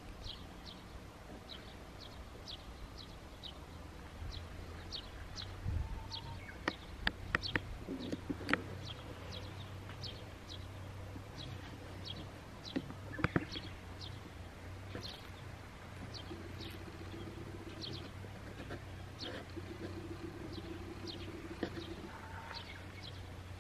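Birds chirping: a long run of short high calls repeating a few times a second, over a low rumble, with a few sharp clicks about a third and halfway in.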